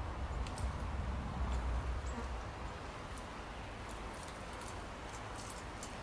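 Outdoor garden ambience: a steady low rumble, heavier in the first couple of seconds, under a faint, even hiss, with scattered very short, high-pitched ticks throughout.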